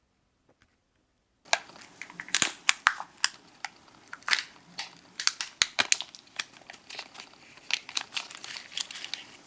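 Thin plastic wrapping crinkling and crackling as a Kinder Joy toy packet is opened and unwrapped by hand, starting about a second and a half in with many sharp crackles.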